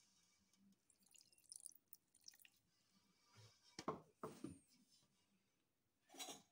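Near silence: room tone with a few faint clicks and soft knocks.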